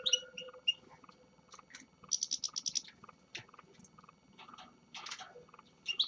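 Caged finches calling: scattered short, high chirps, with a fast trill of evenly repeated notes about two seconds in and a harsher call near the five-second mark.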